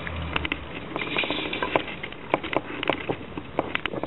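Steel tape measure blade retracting under its own spring, its 33-foot length skittering back over pebbly concrete toward the case: a fast, irregular run of clicks and scrapes. The spring pulls the blade in on its own, which is the test of a spring stiff enough for a tape-measure dipole.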